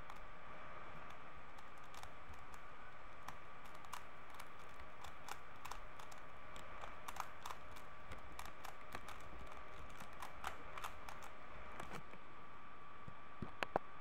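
A 3x3 Rubik's cube being turned fast by hand: a rapid, irregular run of plastic clicks as the layers snap round while a PLL algorithm, the last step of the solve, is executed. Near the end come a few sharper clicks as the cube is set down.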